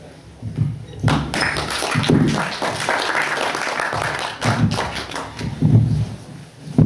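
Audience applauding, starting about a second in and dying away after about four seconds, with low thumps and muffled voices through it.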